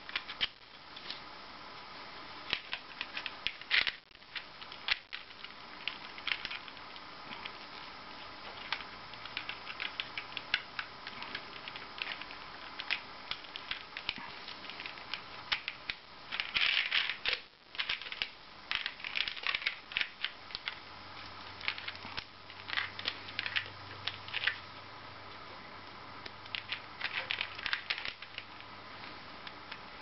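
Irregular clicks, taps and rattles of hands handling small plastic parts: a USB battery pack, its cable plug and LEGO pieces being set down and plugged in on a LEGO baseplate.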